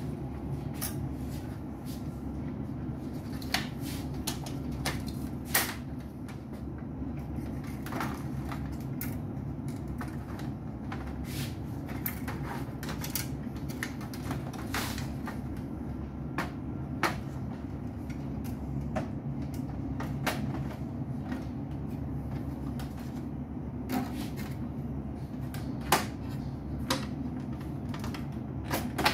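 Scattered plastic clicks and knocks as an HP LaserJet printer's top cover assembly with its control panel is set down and fitted onto the printer body, over a steady low hum.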